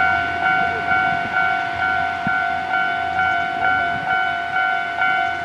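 Japanese railway level-crossing warning bell ringing, an electronic clang repeating evenly about twice a second.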